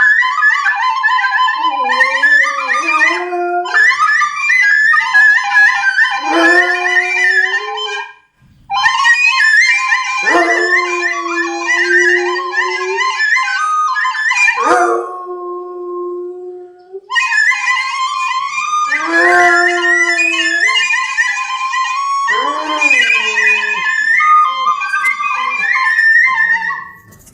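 Rottweiler howling and whining along to a high-pitched played melody, in several drawn-out howls that slide up and down in pitch, with the tune breaking off briefly twice.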